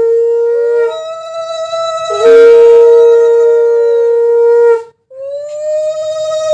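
Two conch shells (shankha) blown in long, steady blasts, one lower-pitched and one higher, their notes overlapping. The lower one stops about a second in and sounds again from about two seconds to nearly five. Both break off briefly near five seconds, then the higher one sounds again. The conch is blown as an auspicious call during the Bengali bride-welcoming (boron) rite.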